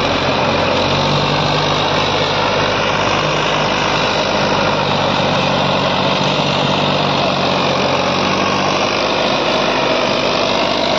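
Swaraj 963 FE tractor's three-cylinder diesel engine running steadily under load, driving a rear-mounted rotavator (rotary tiller) through grassy soil.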